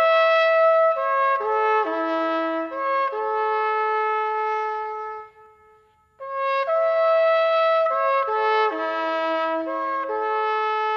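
Solo trumpet playing a slow melody of held notes in two phrases, the second repeating the first after a short pause about halfway through.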